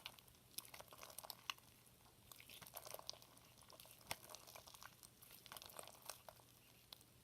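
Faint, scattered sticky clicks and crackles of clear slime being mixed while it is still activating and only partly formed.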